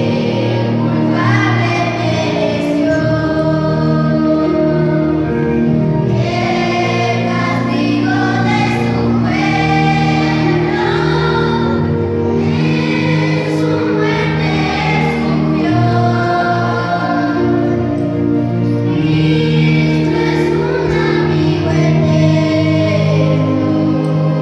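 Girls' choir singing, sustained phrases following one another without a break.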